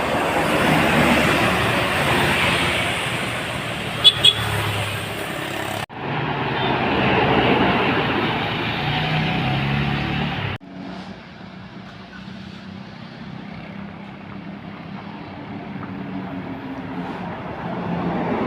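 Road traffic with buses passing close by, engine and tyre noise, cut abruptly twice into three stretches; two quick horn beeps about four seconds in. The last stretch, from about ten and a half seconds, is much quieter.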